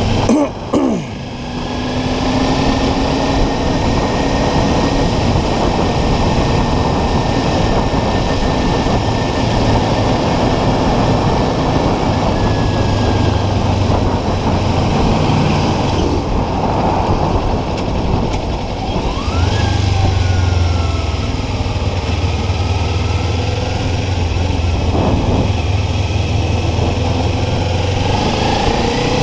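Small Kawasaki Ninja parallel-twin motorcycle engine running under way, under heavy wind rush over the rider's microphone. The engine note climbs and grows stronger about two-thirds of the way through as the bike speeds up.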